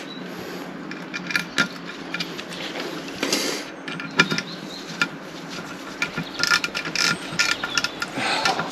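Light metal clicks, taps and short scrapes of a small engine part and its screws being handled and fitted by hand: a motorcycle's electronic ignition pickup being seated with its screws started.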